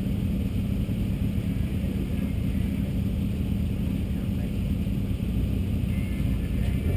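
BMW E36 M3's straight-six engine idling steadily, a low even rumble heard close up from the side of the car.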